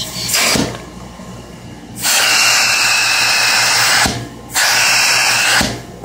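Air rushing into the open metal end of a hose on a 1925 Spencer central vacuum system in three loud bursts that start and stop sharply, the middle one about two seconds long. A steady low hum from the running turbine continues underneath.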